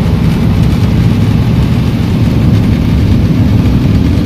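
Engine and road noise inside a moving passenger vehicle: a loud, steady low rumble.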